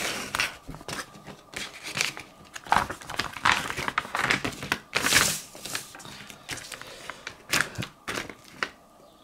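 A folded paper map being unfolded and smoothed flat by hand on a table: irregular paper rustling and crinkling, dying away near the end.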